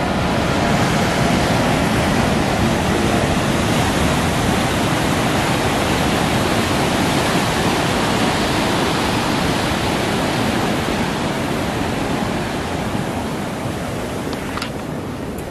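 Steady rush of ocean surf breaking in whitewater below, easing slightly near the end, with a couple of faint clicks near the end.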